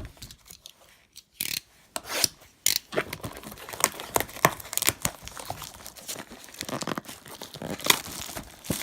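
Trading-card packaging being torn open and crinkled: quiet at first, then, from about a second and a half in, a dense run of sharp crackles and short rips of wrapper.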